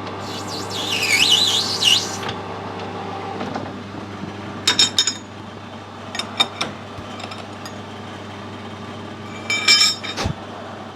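A steady workshop machine hum with a high, wavering metallic squeal over the first two seconds; the hum drops away about three and a half seconds in. Then small metal parts clink sharply with a short ring, in three brief clusters.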